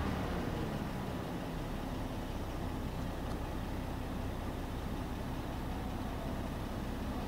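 A motor vehicle's engine running; its tone slides down and fades in the first second or two, leaving a steady low rumble.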